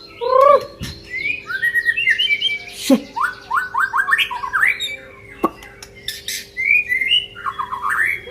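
Songbird singing a fast, varied song of chirps, rapid repeated notes and sweeping whistles, with sharp falling whistles about three and five and a half seconds in.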